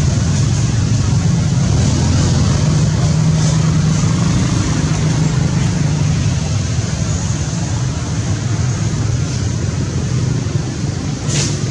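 Steady low engine rumble, with a brief high hiss near the end.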